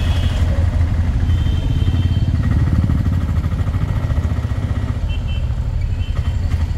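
Vehicle engine running steadily close by in street traffic, a low rumble. A few short high-pitched chirps sound over it.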